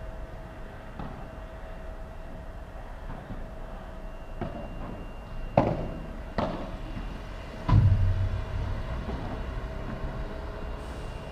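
Padel rally: sharp pops of the ball off paddles and court walls, spaced a second or more apart, over a faint steady hum. Near the middle comes the loudest sound, a heavy thud that lingers about a second.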